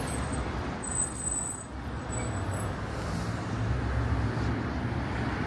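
Road traffic: a vehicle passes close by, loudest for about the first two seconds, with a thin high squeal over it, then a steady hum of traffic.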